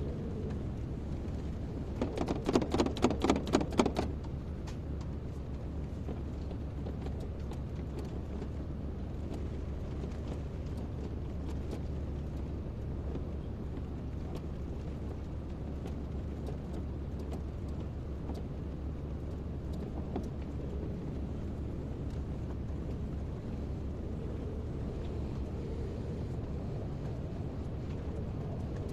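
Kobelco excavator's diesel engine running steadily, with a loud burst of rapid, evenly repeated pulses lasting about two seconds near the start.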